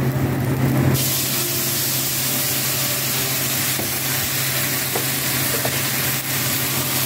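Sauce slurry poured into a hot wok of stir-fried vegetables, sizzling on contact: the sizzle starts suddenly about a second in and then holds steady.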